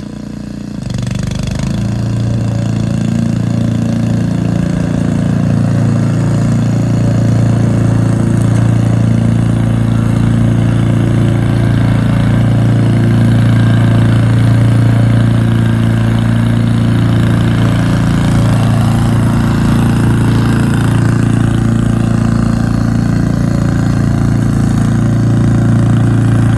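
Honda petrol lawn mower engine running steadily at mowing speed, rising to full speed in the first couple of seconds.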